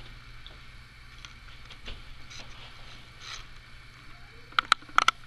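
Handling noise of a handheld camera being carried: a steady low hum under faint rustle, then a quick run of four sharp clicks near the end.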